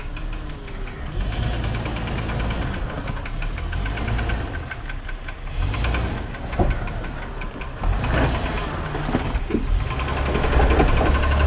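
Engine of an off-road 4x4 running at low revs as it crawls over rock, rising and falling with the throttle, with a few sharp knocks in the second half.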